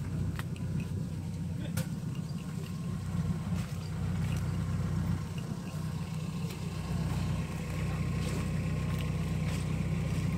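Kubota M8540 tractor's four-cylinder turbo diesel engine running steadily with a low, even hum, and a few light sharp clicks over it.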